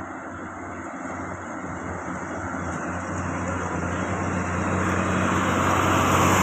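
Loaded diesel truck's engine pulling steadily uphill under load as it approaches, its low engine hum and road noise growing louder throughout.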